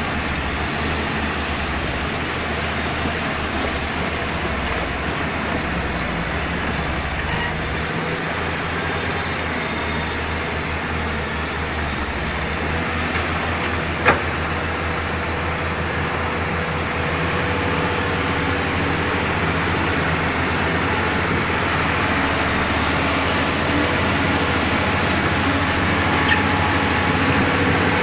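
Excavator diesel engine running steadily, with one sharp knock about halfway through; it grows a little louder in the second half.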